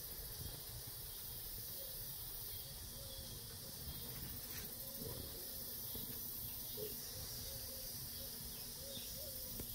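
Faint steady high hiss of garden ambience, with a thin, faint wavering tone running under it.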